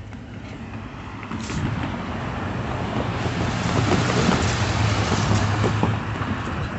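A road vehicle, most likely a truck, drives past: engine hum and tyre noise build over a few seconds, peak around the middle, and begin to fade near the end.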